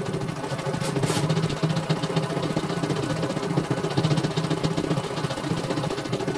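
CNY E900 computerized embroidery machine stitching a design: a fast, steady needle rhythm over the hum of its motor, with two short ticks about a second in.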